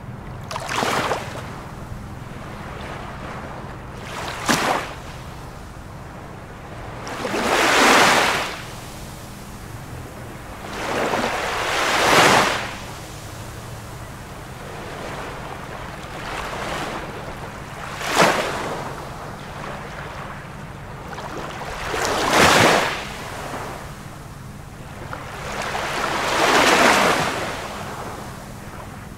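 Ocean waves breaking and washing in, a rushing surge roughly every four seconds: some short and sharp, others swelling and fading over a couple of seconds. A faint steady low hum runs underneath.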